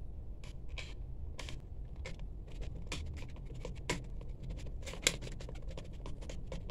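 Screwdriver scraping and clicking against a plastic 13A wall-socket faceplate as its fixing screws are worked, a run of small scratchy clicks with two sharper clicks a little over a second apart near the middle.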